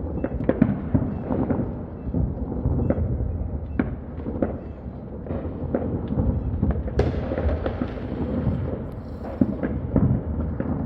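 Many fireworks going off at once, a steady rumble of distant booms with frequent sharp bangs and crackles from closer ones, and a sharper crack about seven seconds in.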